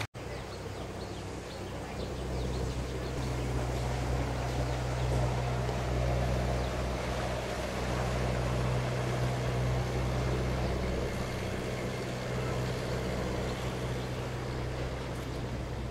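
Engine of a wooden Mekong river boat running with a steady low drone, getting louder about two seconds in and easing slightly near the end.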